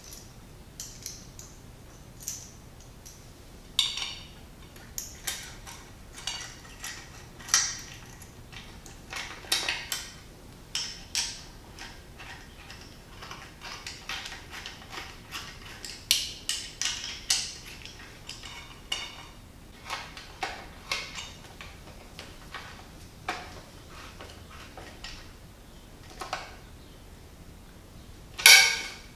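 A stainless worm-drive hose clamp being fitted and tightened with a nut driver: irregular small metal clicks and clinks of the band and tool, with a louder clink near the end.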